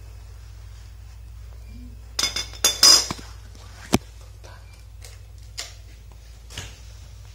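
Hard pump fittings and tools clattering and clinking as they are handled: a loud burst of rattling knocks about two seconds in, one sharp click about a second later, then a few lighter knocks.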